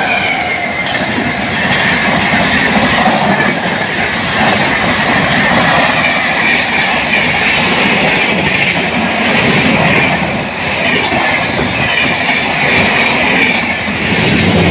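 Express train hauled by a WAP-7 electric locomotive running past at high speed: a loud, steady rush of wheel and rail noise with a rapid clickety-clack.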